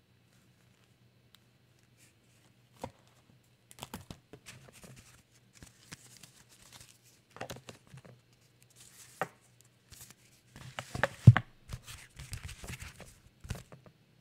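Paper rustling and crinkling, broken by scattered sharp clicks and knocks, as supplies are handled on a desk; a faint steady low hum runs underneath.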